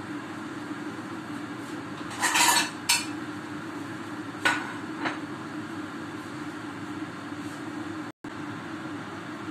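Metal cookware clattering briefly about two seconds in, then two sharp clinks a couple of seconds later, over a steady low hum.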